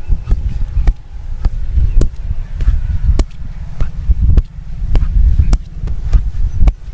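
Percussive hand massage: sharp hand strikes on the body about twice a second, over a constant low thudding rumble.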